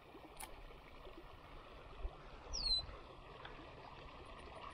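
Faint outdoor ambience: a steady low hiss, with a single short, high, falling bird chirp about halfway through and a couple of soft low bumps.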